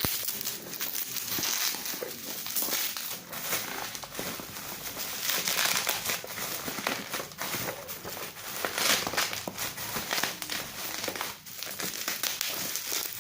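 Plastic packaging crinkling and rustling irregularly as it is handled and unwrapped.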